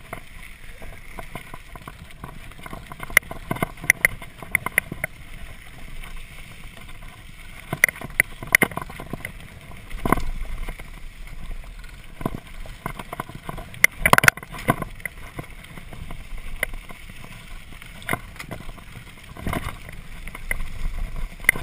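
Mountain bike rolling fast down a gravel track: a steady rumble of tyres on the loose surface with frequent sharp clicks and rattles from the bike, the loudest clatter about two-thirds of the way through.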